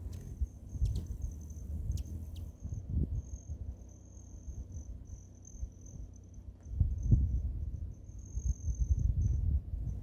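A cricket trilling, a thin high steady tone broken into short stretches, over a low gusting rumble that swells twice in the second half, with a few sharp ticks in the first few seconds.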